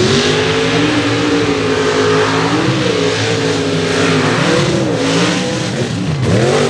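Street-class mud racing truck engines launching at wide open throttle: the pitch jumps up sharply at the start, then climbs and falls again and again as the trucks run the hill-and-hole course, with quick dips and surges near the end.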